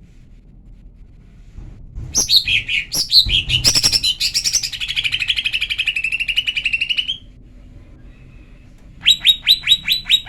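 Female greater green leafbird (cucak ijo) calling. About two seconds in, a run of varied chirps leads into a fast, chattering trill lasting roughly three seconds. After a pause, a quick series of about eight sharp, downward-sweeping notes follows near the end. It is the female's call that bird keepers play to stir up males.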